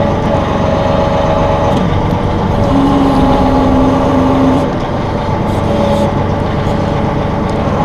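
Massey Ferguson 1742 compact tractor's diesel engine running steadily while the CB75 backhoe is worked, with hydraulic whine tones that change as the control levers are moved. A new, lower tone comes in about three seconds in and drops out about a second and a half later.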